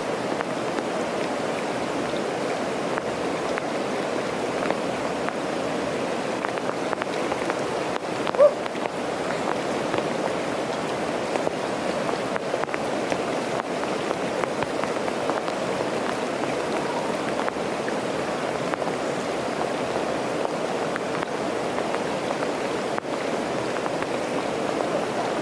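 River water flowing steadily, with rain falling. About eight seconds in there is a brief, short, high sound.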